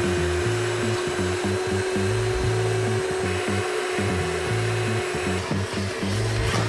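Background music with a repeating low bass line and a steady held tone.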